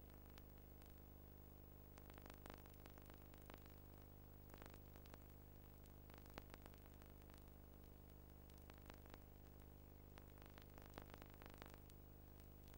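Near silence: a faint steady low hum with scattered faint clicks, the background noise of a home-movie transfer that carries no recorded sound.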